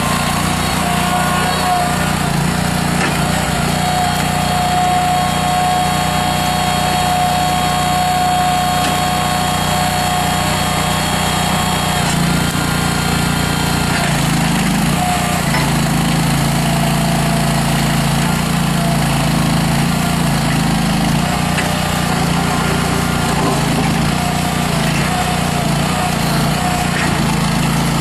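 Honda GX620 V-twin gas engine of a Terrimite T5C backhoe loader running steadily while the machine is worked through its functions, with a higher whine above the engine note that wavers in pitch.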